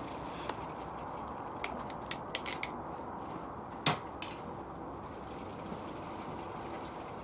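A single shot from an Air Arms S410 pre-charged pneumatic air rifle about four seconds in, a short sharp crack, followed about a third of a second later by a faint click of the pellet striking the target. Before the shot, a few light clicks of handling.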